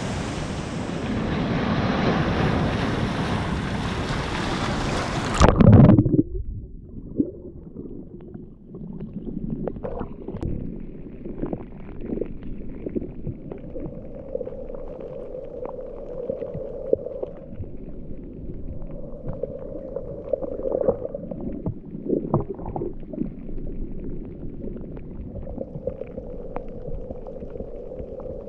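Surf and wind buffeting the microphone at a rocky shore, ending with a loud thump after about five seconds. It gives way to a quieter, muffled steady hum with scattered clicks.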